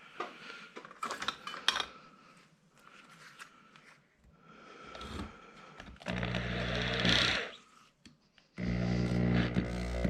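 Light clicks and knocks of handling, then an electric drill powering a StripMaster wire stripper runs in two bursts: briefly about six seconds in, and again from about eight and a half seconds on.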